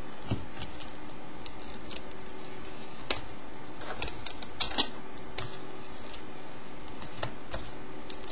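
Hands folding and tucking paper on a plastic binder: scattered paper crinkles and light taps, with two sharper clicks about four and a half seconds in. A faint steady hum runs underneath.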